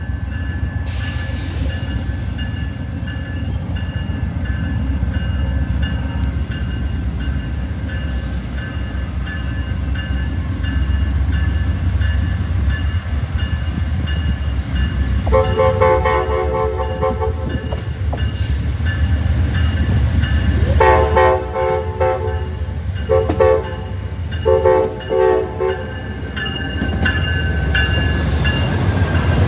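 Amtrak train running with a steady low rumble, then its horn sounding a long blast about halfway through, followed by the grade-crossing pattern of long, long, short, long.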